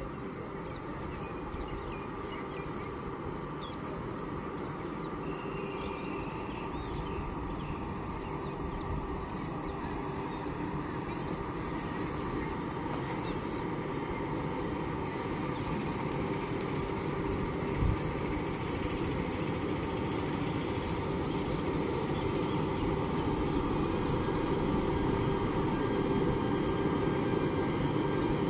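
Two coupled locomotives approaching slowly along the track: a steady hum and rumble that grows gradually louder as they come nearer, with one short sharp knock partway through.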